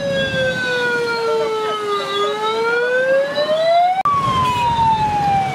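Emergency vehicle siren wailing in slow sweeps: falling, then rising, then jumping suddenly to a higher pitch about four seconds in and falling again. A low traffic rumble lies underneath.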